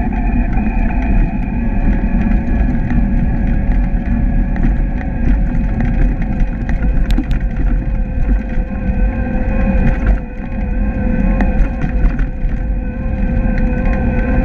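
Urban Arrow electric cargo bike's Bosch mid-drive assist motor whining steadily under load on a hill climb, like a quiet milk-float, over a loud rumble of road noise carried up through the frame.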